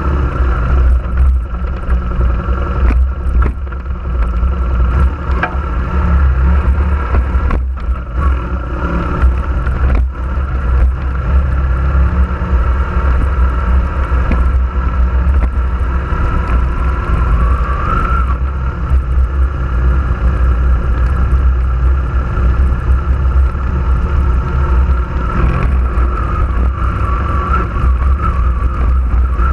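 Off-road vehicle's engine running steadily while driving a rough dirt trail, with a heavy low rumble and a few sharp knocks from the bumps in the first ten seconds.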